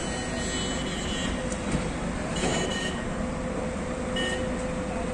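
Diesel engines of a Hyundai tracked excavator and a tipper truck running steadily, an even machine noise with a constant hum.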